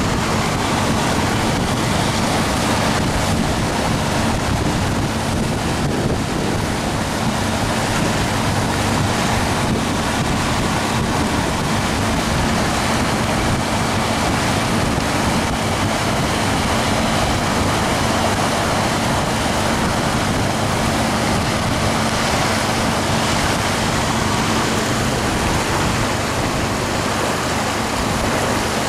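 Motorboat underway: its wake churning and rushing, wind buffeting the microphone, and a steady low engine hum underneath.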